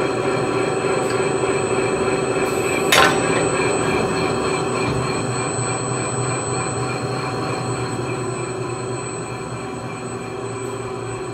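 Weber CCS 302 UB industrial slicer running: a steady mechanical hum with several held high tones over it, and one sharp click about three seconds in.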